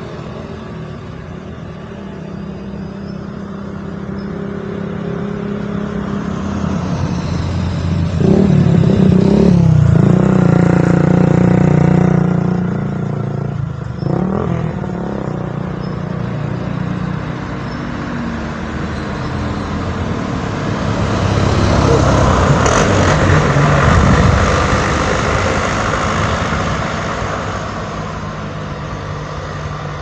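Motor vehicles, cars and a truck, driving past on a winding road, their engines and tyres swelling and fading. The loudest passes come about eight to thirteen seconds in and again a little past twenty seconds.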